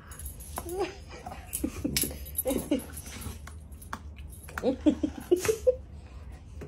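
Belgian Malinois rolling and squirming on its back, making short playful whines and grumbles that rise and fall in pitch, a few around the middle and a quicker run of them near the end.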